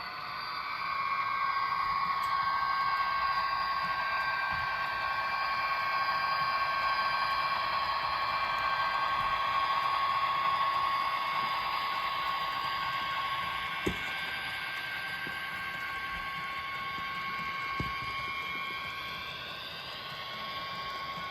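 Small electric motor of an HO-scale model locomotive whining steadily as the train runs, rising in pitch about a second in and falling away near the end, with two sharp clicks in the second half.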